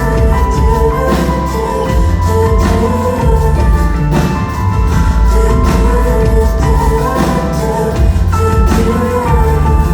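Band music: a steady drum beat over heavy bass, with held keyboard tones.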